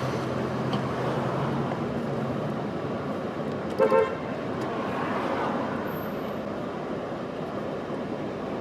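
Steady street traffic noise with a car horn giving two quick beeps about four seconds in.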